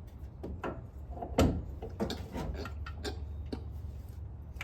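Irregular clicks and knocks of parts and hand tools being handled during an alternator install, the loudest knock about a second and a half in, over a steady low hum.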